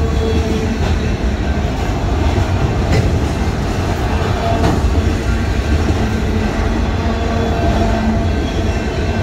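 Freight train of autorack cars rolling past: a steady rumble of steel wheels on rail with an occasional sharp clack and a faint squeal now and then.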